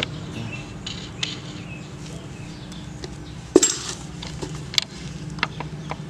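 Scattered light metal clinks and taps as bolts and tools are worked on a Honda GX160 cylinder head during disassembly, with one louder knock about three and a half seconds in. A steady low hum runs underneath.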